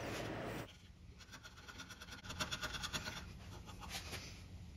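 Bench chisel paring the sides of an oak tenon by hand: a run of faint, quick scraping strokes from about a second in, after a brief steady hiss.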